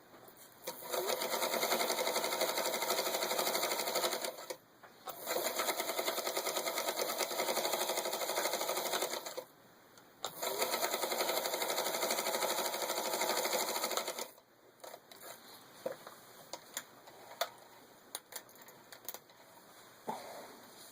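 Singer 221-1 Featherweight sewing machine with a refurbished motor stitching through four layers of denim, running smoothly in three spells of about four seconds each with short stops between. After the third spell come only scattered light clicks.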